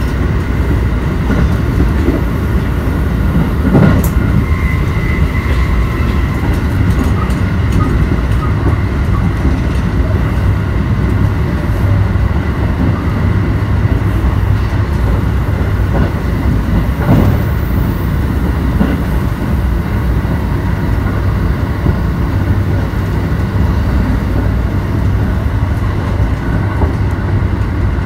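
Electric commuter train on the JR Kobe Line running at speed, heard from inside the carriage: a steady rumble of wheels on rails with a faint high whine. Two brief knocks stand out, about four seconds in and again past the halfway point.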